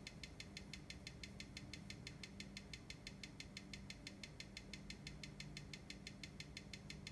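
Seiko NH35 automatic watch movement ticking on a timegrapher's microphone: a faint, even, fast tick at about six beats a second, the movement's 21,600 beats per hour.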